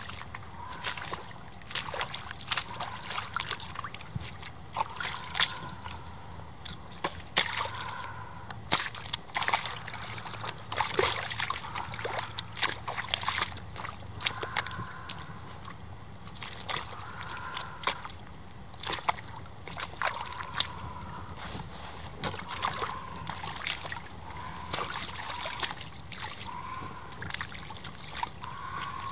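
Rubber boots and a rubber suit squelching, slapping and splashing in a wet, muddy clay puddle, with many irregular sharp clicks and slaps of mud and water.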